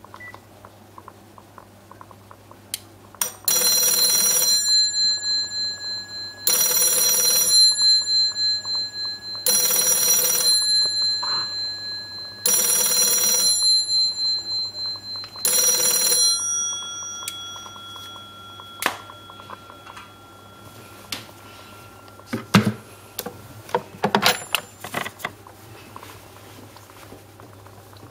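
NTT 600-A2 black telephone's electric bell ringing with its rattling 'jiri-jiri' sound: five rings of about a second each, roughly three seconds apart, the last one fading out. A few clicks and knocks follow near the end.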